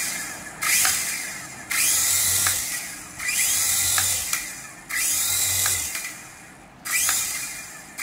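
HX708 toy RC helicopter's small electric motors and rotors whirring up in repeated spurts as the throttle is pulsed. There are about five bursts; each starts suddenly with a rising whine and dies away within a second or so.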